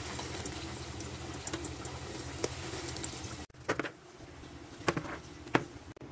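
Potato and eggplant pieces frying in hot oil in an enamel pot, a steady sizzle. About three and a half seconds in it cuts off, and a few sharp knocks follow as a knife slices zucchini on a board.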